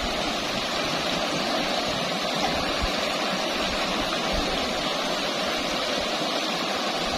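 Shallow river water rushing steadily over a rippling riffle.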